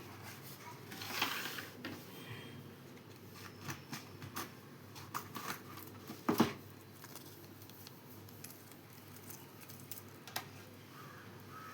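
Handling of a smartwatch and its packaging during unboxing: scattered small clicks and rustling, with one louder knock about six seconds in.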